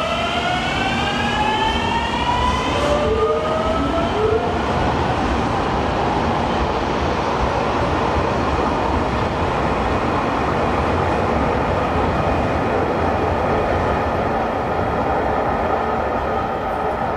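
A JR Shikoku limited express electric train pulls out of the station. Its motors give a whine that rises in pitch over the first few seconds, then the cars run past with a steady rumble of wheels on the rails.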